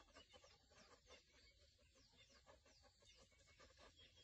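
Near silence, with faint short high chirps repeating through it and a few soft clicks.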